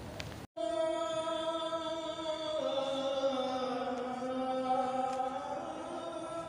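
Chanting in long held notes, an added vocal track, that starts after a sudden cut about half a second in; the pitch steps down a few seconds in and rises back near the end.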